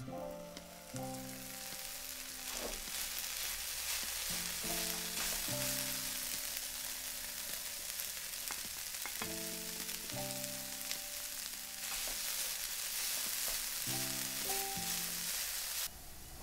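Food frying in hot oil: a steady sizzle that cuts off suddenly near the end, with background music.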